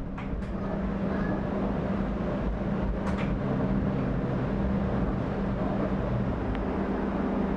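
Inside a moving TTC Flexity Outlook low-floor streetcar: steady running hum of the car's drive and wheels on the rails, with a low rumble. A couple of brief clicks or rattles come near the start and again about three seconds in.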